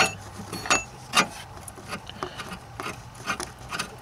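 Long threaded metal battery hold-down rod being slid down beside a car battery, rubbing and scraping against the battery tray and bracket, with a few sharp clicks and taps, the loudest about a second in.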